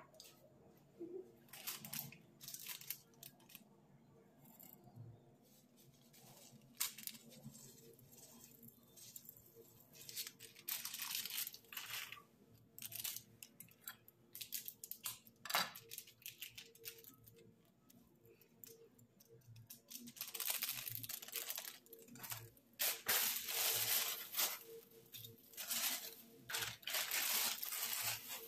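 Plastic snack-packet wrapper crinkling and tearing in irregular bursts, as packets of dry instant noodles are crushed and torn open. The rustling is sparse at first and gets busy over the last several seconds.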